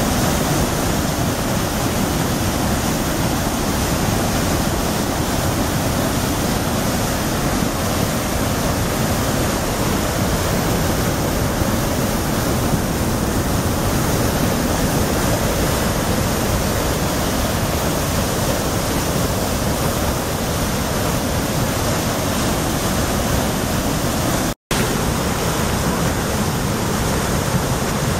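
Athabasca Falls: the Athabasca River's whitewater crashing over and through the rock channel, a loud, steady rush of water. The sound cuts out for an instant about three-quarters of the way through, then resumes unchanged.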